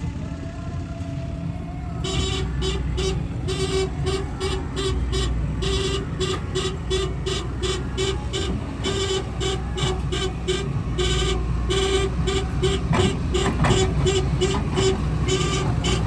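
Heavy diesel engine running, with a rapid, repeating horn-like beeping that starts about two seconds in, like a truck's reversing horn.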